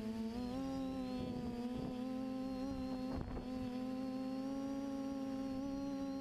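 FPV quadcopter's brushless motors whining steadily at a constant throttle, the pitch stepping up slightly about half a second in.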